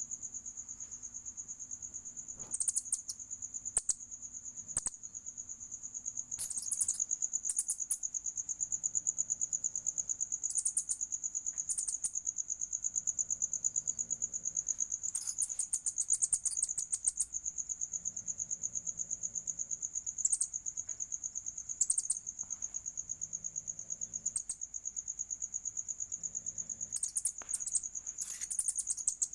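Insect chorus: a steady, high-pitched trill pulsing fast and evenly, with short sharp high chirps breaking in now and then.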